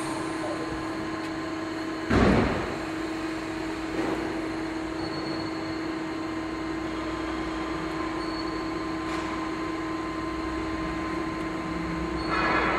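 Knuth Compact 330 CNC lathe standing by with a steady mechanical hum, broken about two seconds in by a loud, short sliding noise from the machine's enclosure door opening. A click follows near four seconds, and another brief noise near the end.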